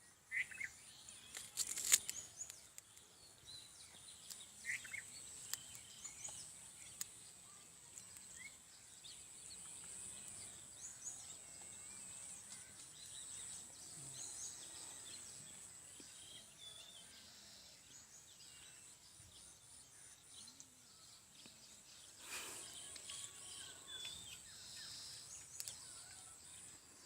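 Faint outdoor ambience with scattered bird chirps over a steady high-pitched whine. A few brief louder noises stand out, about two seconds in and again near the end.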